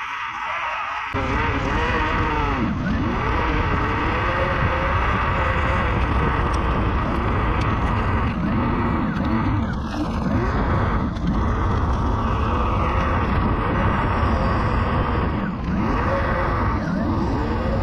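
Kite buggy wheel rolling fast on asphalt: a steady rough tyre roar mixed with heavy wind rumble on the microphone, getting louder about a second in.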